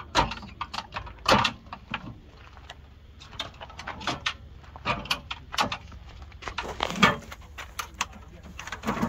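Clicks, rattles and knocks of a metal slide-out stove drawer being unlatched and pulled out of a truck camper's storage compartment on its drawer slides, with two louder knocks about one and a half and seven seconds in.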